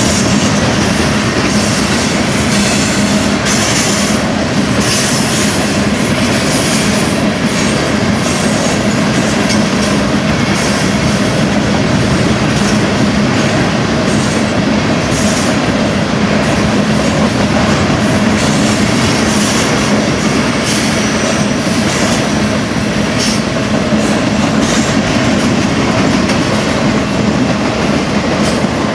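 Loaded flatcars of a long freight train rolling past at close range: a steady, loud noise of steel wheels running on the rails, with brief high squeals from the wheels now and then.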